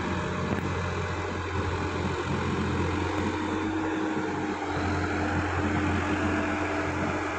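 Sonalika DI 50 RX tractor's diesel engine running steadily under load as its rear rotavator churns through wet soil: an even, unbroken drone with no change in engine speed.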